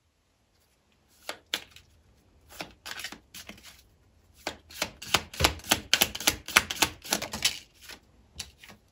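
Typing on a computer keyboard: irregular keystroke clicks, a few scattered at first, then a quick dense run through the middle, with a few more near the end.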